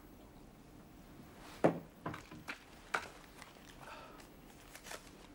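Footsteps across a room's floor, a handful of knocking steps about half a second apart, the first the loudest, with a faint squeak a little later and a last knock near the end.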